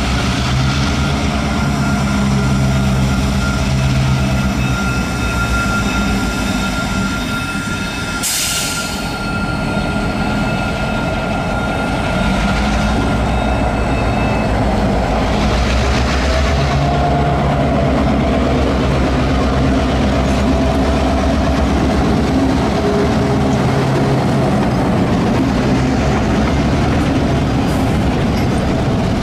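Diesel road-switcher locomotive of a freight train running with a steady low throb as it moves with its cars, with a brief hiss about eight seconds in.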